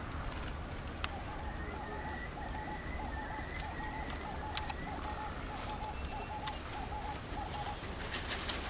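A bird calling a steady series of short, identical notes, about two a second, stopping about seven seconds in, with a thin higher wavering call alongside for a few seconds. A low rumble of wind on the microphone runs underneath.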